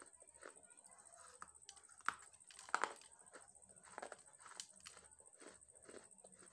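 Close-miked biting and chewing of lumps of dry red clay: sharp crunches about two seconds in and twice just before three seconds, then smaller crunches around four seconds. A faint steady high whine runs underneath.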